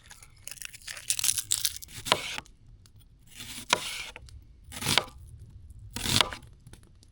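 Papery outer skin being peeled and torn off a large onion half, in several short crackling tears.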